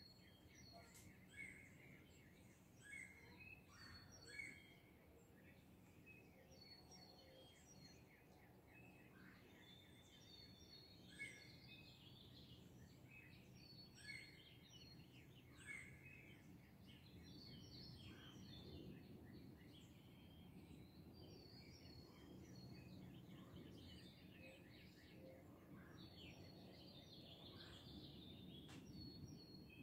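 Faint early-morning birdsong: many small birds chirping and trilling, over a low steady rumble that grows a little louder in the second half.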